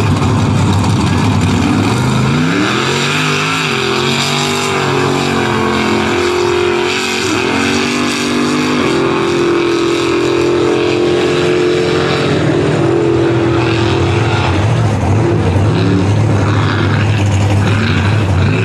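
Lifted mud truck's engine revving hard at full throttle on a race run. Its pitch climbs steeply about two seconds in, then holds high with a couple of brief dips.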